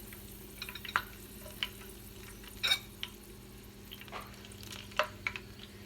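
Oil with rue leaves and garlic cloves heating in a small pan, sizzling with scattered pops and crackles over a steady low hum.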